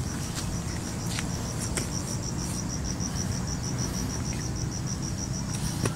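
An insect in the forest calling in a steady train of high-pitched pulses, about seven a second, over a low background rumble, with a few faint ticks.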